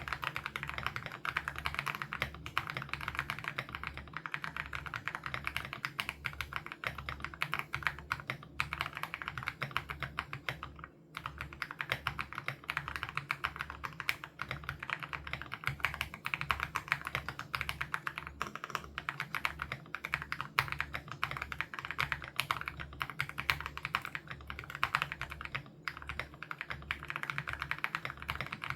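Continuous fast typing on an Aula F87 Pro mechanical keyboard with HMX Sarcophagus switches, a dense run of keystroke clicks with a brief pause about eleven seconds in.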